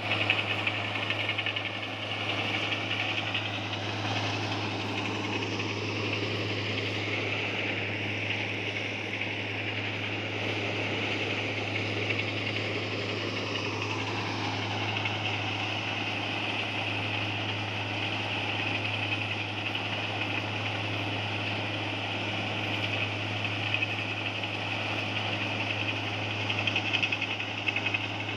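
An engine running steadily, with a constant low hum and a hiss higher up, and no distinct knocks or strikes.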